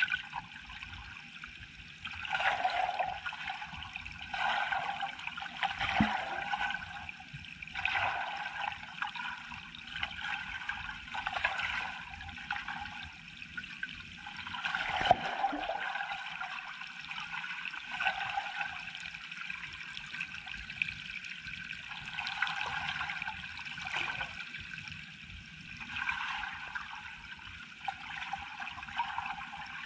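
Water heard from under the surface by a submerged camera: a noisy water sound that swells and fades about every two seconds, with a couple of sharp knocks.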